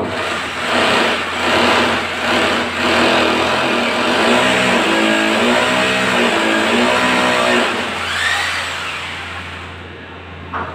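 Electric power drill running, its motor pitch rising and falling under load, dying away about eight seconds in. A sharp click near the end.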